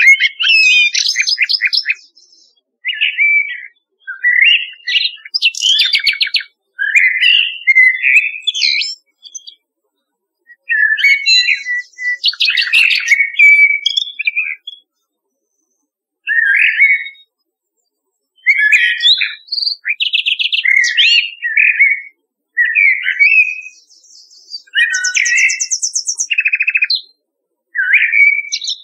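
Common nightingale and blackbird song from a nature recording: short varied phrases of whistles, warbles and fast repeated-note trills. Each phrase lasts a second or two, with clear pauses between them.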